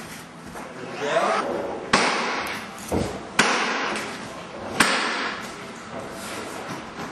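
A few sharp knocks and clacks at uneven gaps, each ringing out over about a second in a large, echoing room, from hand work on the wood panels and an adhesive gun.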